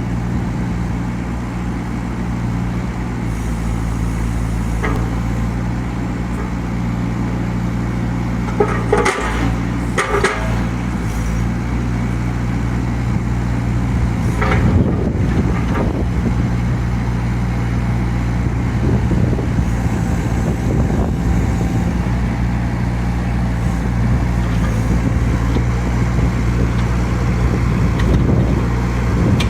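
3.5-ton mini excavator's small diesel engine running steadily, with a few short sharp knocks about nine, ten and fifteen seconds in.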